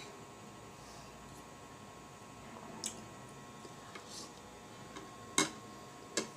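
A person eating a spoonful of sisig: quiet chewing with three sharp wet mouth clicks, about three seconds in, once more loudly past five seconds, and again near the end.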